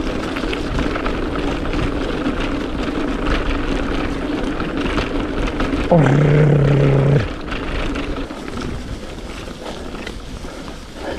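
Mountain bike rattling and juddering over cobblestones, with a steady low tyre rumble under many small knocks. About six seconds in, a loud held low tone sounds for just over a second, and the rattle eases after it.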